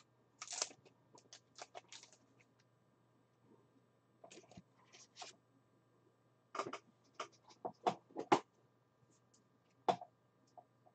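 Faint, scattered short clicks and light scrapes of small objects being handled. They come in a few loose clusters, with the most frequent ones in the second half.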